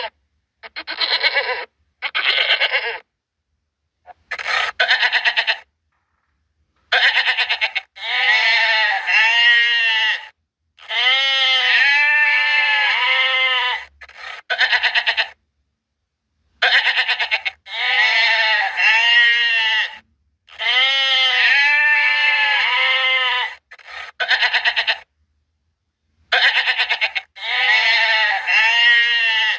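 Domestic goats bleating: a run of loud, quavering calls, some short and some drawn out over two or three seconds, with brief gaps of silence between them.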